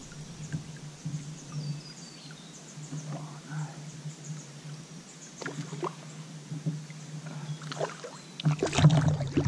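Scattered knocks and water noise around a kayak while a hooked fish is played in close on a spinning rod, over a steady low hum; a louder burst of splashing and knocking comes near the end.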